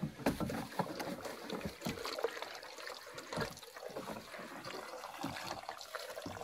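Water trickling and splashing in small irregular spills, with light knocks, as fish are rinsed by hand.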